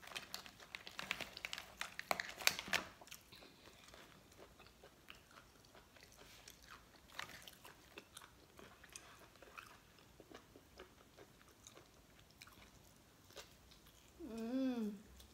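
Close-up eating sounds of boiled lobster: chewing and mouth sounds, with a dense run of sharp clicks and crackles from handling the lobster shell in the first few seconds, then sparser clicks. Near the end, a short hummed voice sound.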